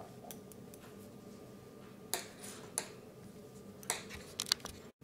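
Knitting needles clicking softly and irregularly as stitches are worked, a few light taps spaced a second or so apart.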